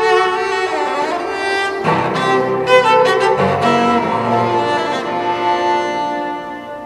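Cello played with the bow: a melodic line of changing notes, ending on a longer held note that fades away near the end.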